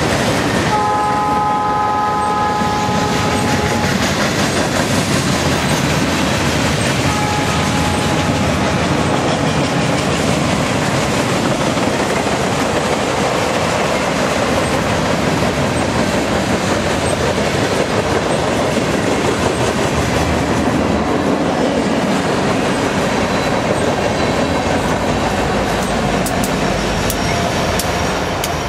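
Freight train of boxcars, a tank car and gondolas rolling past close by: a steady rumble and clatter of steel wheels on the rails. A locomotive horn sounds a chord for the first few seconds and stops about four seconds in, and a faint high wheel squeal comes in near the end.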